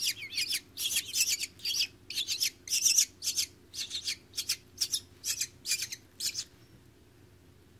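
Nestling hawks calling for food, a quick series of short, high-pitched squealing cries about three a second, which stop about six and a half seconds in.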